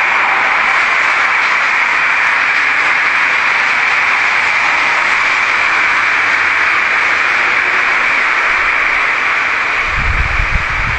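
Steady loud hiss of a heavily amplified recording with no voice in it. A few low rumbling thumps come near the end.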